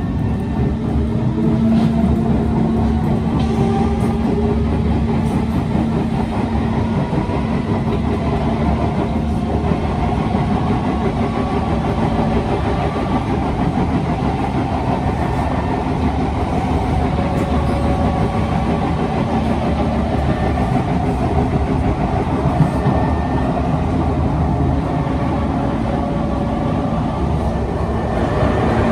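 Kawasaki C151 MRT train heard from inside the car as it pulls away and runs at speed: the traction motors whine upward in pitch over the first few seconds as it accelerates, over a steady loud rumble of wheels on rail. The uploader says this car's wheels have severe flat spots.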